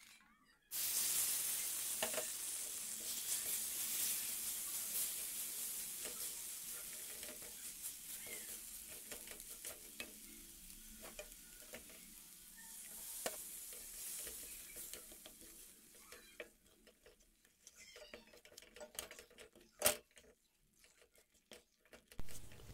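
Hot water poured into wheat flour roasted in ghee in a kadai, hissing and sizzling as it hits the hot ghee, starting suddenly and fading, with a second sizzle about halfway through as more water goes in. A wooden spatula stirs and scrapes the thickening mixture, with scattered taps against the pan near the end.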